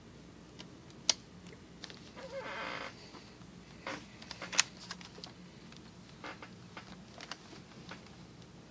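Sharp plastic clicks and knocks of a Toshiba Portégé convertible laptop being handled as its screen is swivelled on the hinge and folded down into tablet mode. The two loudest clicks come about a second in and near the middle, and a short squeak sounds about two and a half seconds in.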